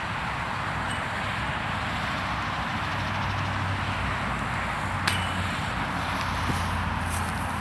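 Steady outdoor background noise with a low hum, and one sharp click with a brief ring about five seconds in.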